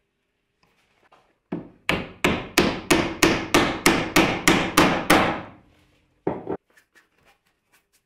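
A mallet driving a glued wooden dowel down into a hole in the edge of a hardwood board. One knock comes first, then a steady run of about a dozen sharp strikes at roughly three a second, and a last strike near the end.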